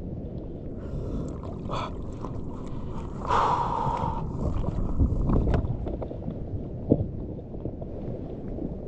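Sea water sloshing around an inner-tube fishing float, with wind on the microphone. A louder noise stands out for a few seconds in the middle, strongest about three to four seconds in, and there is a short knock near the end.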